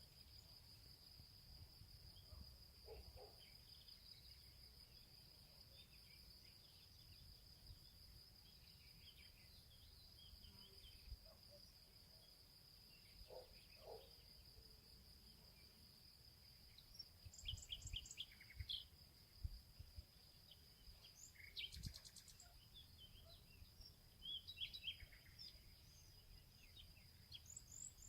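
Faint outdoor ambience: a steady high-pitched insect trill with scattered bird chirps that come more often in the second half.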